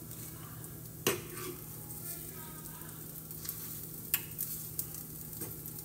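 Metal fork stirring and scraping scrambled eggs in a frying pan, with sharp clicks of the fork against the pan, the loudest about a second in and another near four seconds, over a steady sizzle of frying food.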